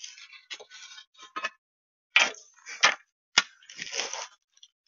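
Knocks and clatter from handling wooden trim and tools: rustling and scraping, then three sharp knocks about half a second apart, and a short scrape after them.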